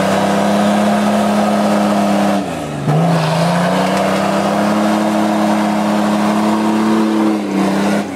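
Nissan Patrol 4x4 engine revving hard as the truck claws up a muddy slope. The revs hold high, sag briefly a few seconds in, climb back and hold, then ease slightly near the end.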